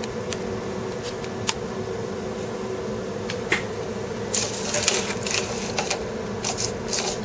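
Small sharp clicks and quick crackling handling noises of small parts being worked by hand, sparse at first and coming thick and fast from about four seconds in, over a steady machine hum.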